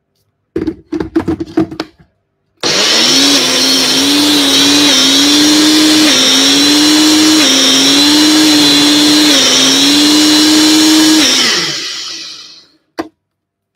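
Personal blender: a few clicks and clatter as the cup is seated on the base, then the motor runs for about nine seconds, its pitch dipping and recovering in small steps as it churns a thick mix of vegetables and mushrooms, before winding down. A single click near the end.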